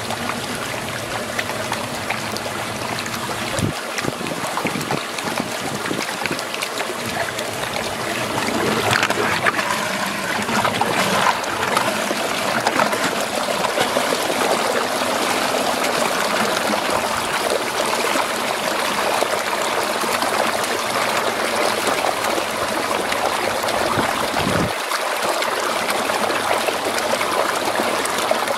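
Water swirling and draining down a whirlpool hole: a steady rushing that grows louder about eight seconds in.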